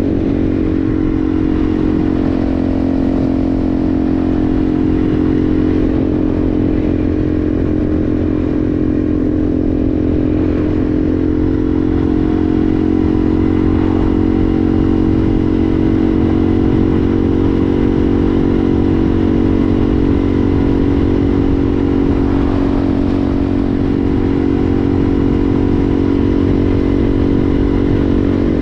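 Yamaha TW200's single-cylinder four-stroke engine running at a steady speed as the motorcycle is ridden.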